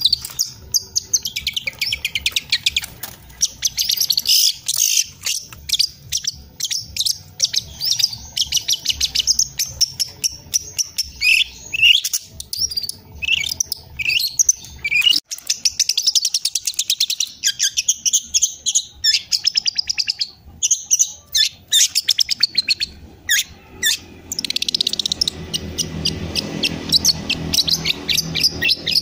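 Juvenile long-tailed shrike (cendet) singing a fast, nearly continuous run of high chirps, trills and mimicked calls: a young bird rehearsing the song material it learned from master recordings. A low background rumble comes in near the end.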